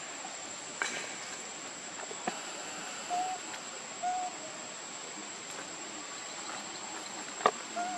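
Three short hooting animal calls, each about a quarter second long, the first two a second apart and the third near the end. They sound over a steady high-pitched whine, with a few sharp snaps or clicks, the loudest shortly before the last call.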